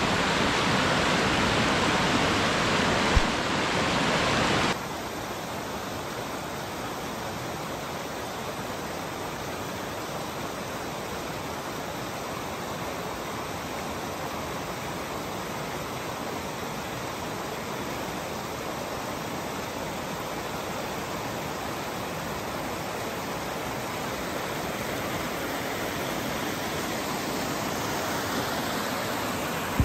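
Steady rush of running water. A short knock sounds about three seconds in, and the rush drops suddenly to a softer level a couple of seconds later.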